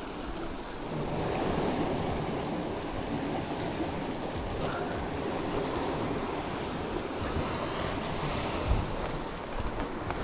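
Sea surf washing and breaking against rocks, a steady rushing noise that swells about a second in, with wind buffeting the microphone.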